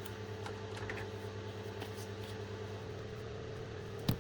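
Steady low hum of room background with a few faint ticks, then one sharp click near the end, as parts are handled while the Roomba's brushes come out.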